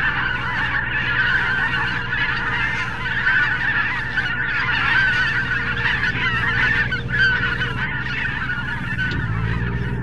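A large flock of geese honking, many calls overlapping without a break, over a steady low hum.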